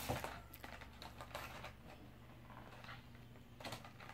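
Soft crinkling and clicking of a clear plastic wrapper around a vinyl Funko Pop figure as it is pulled from its cardboard box and handled, in a few short bursts.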